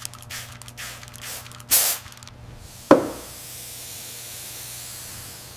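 Hand-held trigger spray bottle squirting liquid: several quick sprays, with the longest and loudest about 1.7 seconds in. A single knock follows about 3 seconds in, then a faint steady hiss.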